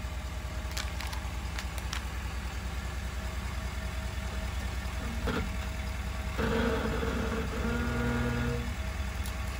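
Ford F-350 Super Duty pickup's engine idling with a steady low rumble. A few sharp clicks come in the first two seconds, and a short hiss about six and a half seconds in.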